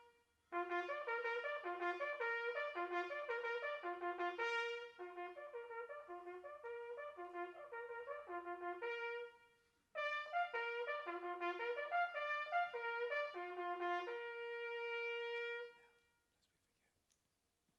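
Solo trumpet playing a military bugle call in two phrases of leaping notes. It ends on a long held note that dies away about two seconds before the end.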